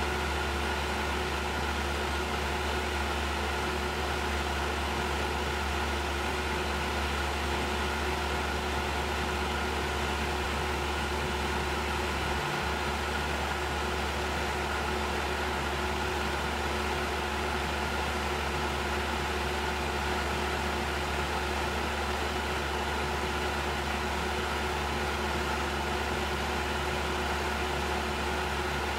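CNC mill running steadily, its spindle turning a 1 mm ball end mill on a light finishing pass in brass: an even low hum with a faint high whine and hiss. The hum breaks off for a moment about twelve seconds in.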